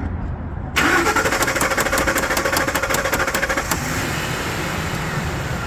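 2003 Ford F-150 engine cranking on the starter, a fast regular chatter that begins suddenly about a second in, then catching and running steadily from about four seconds in. The truck has a crank-but-no-spark fault that tapping the PCM relay while cranking gets past, the sign of a failing PCM relay.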